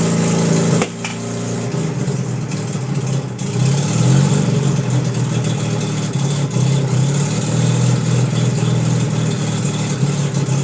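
Freshly rebuilt twin-turbo 13B rotary engine of a 1993 Mazda RX-7 running on its first start-up. Its speed rises and falls for a few seconds before settling steady, and the sound drops abruptly in level about a second in.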